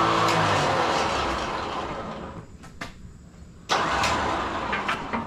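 Electric winch motor running as it spools the line in, cutting out about half a second in and winding down over the next two seconds. A few clicks follow, then a sudden short burst about three and a half seconds in that fades over a second.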